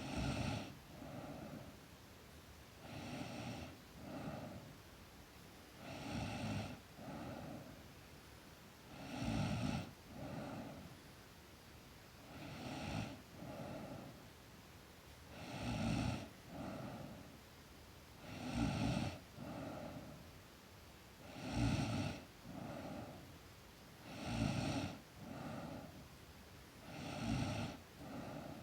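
A sleeping girl snoring in a steady rhythm of about one breath every three seconds. Each breath gives a louder snore followed at once by a softer, shorter one.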